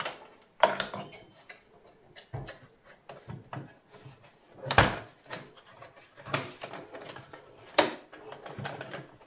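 Scattered clicks and knocks of a screwdriver and hands working on the parts inside a steel desktop PC case, with three sharper knocks: about a second in, near the middle, and near the end.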